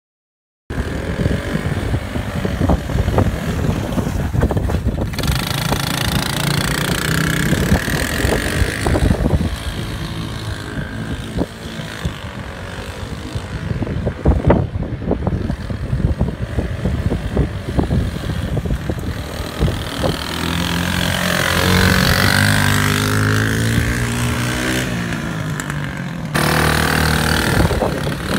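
Tao Tao T-Force 110cc youth ATV's small engine running as the quad is ridden, its pitch rising and falling as the rider speeds up and slows. The sound jumps suddenly a few times.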